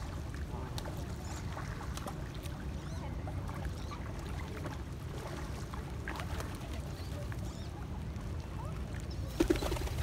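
Lakeshore flock of Canada geese, ducks and pigeons over a steady low rumble, with faint scattered calls and clicks. Near the end comes a brief louder flurry as a bird flaps its wings close by.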